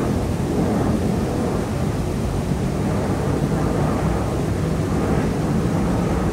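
Jet airliner on approach passing overhead: a loud, steady, low engine rumble.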